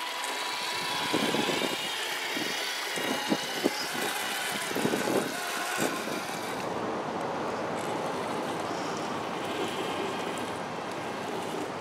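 Electric motors and geared drivetrains of RC scale crawler trucks whining as they drive through mud, the whine wavering in pitch with the throttle, with scattered knocks and clicks. After about six seconds the whine fades and a steady rushing noise is left.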